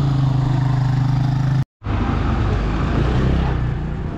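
A motor vehicle engine running with a steady hum, cut off abruptly about a second and a half in. After the cut comes a lower, rougher engine rumble of street traffic.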